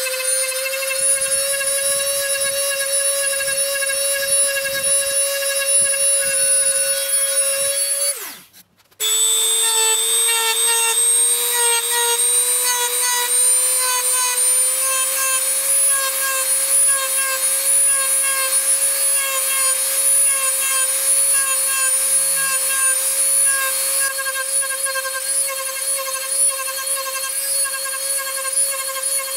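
High-speed rotary tool with a flame-shaped burr carving scallops into a wooden spoon blank: a steady high whine with a row of overtones. About eight seconds in the whine drops in pitch and cuts out for under a second, then comes back slightly lower and slowly climbs back up.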